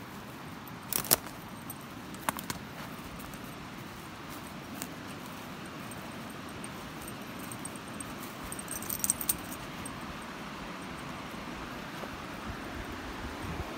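Steady rushing of the Provo River, a snowmelt mountain river, with a few sharp clicks, the loudest about a second in, and a short cluster of light clicks around nine seconds.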